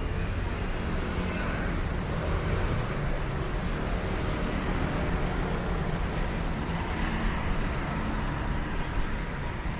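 Street traffic: a steady rumble of engines and tyres, with passing vehicles swelling and fading several times.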